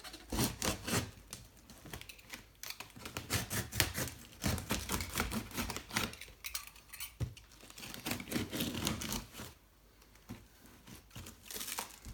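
A cardboard shipping box and its packaging being opened and handled by hand: irregular clicks, taps, scrapes and rustling, with a short lull about two thirds of the way through.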